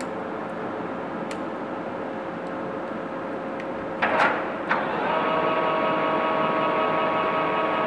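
TOS Varnsdorf WHN9B horizontal boring mill's headstock drive running with a steady mechanical hum. About four seconds in there is a short hissing burst and a click as the headstock selector knobs are worked, and after it a steady whine of several tones from the gearing sets in, a little louder.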